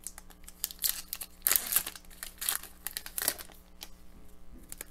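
Foil wrapper of a hockey card pack crinkling in several short bursts as the pack is handled and opened.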